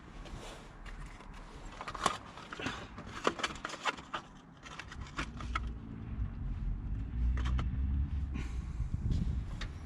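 Hands working on a car headlight assembly: a quick run of sharp plastic clicks and knocks, followed by a low rumble of handling noise.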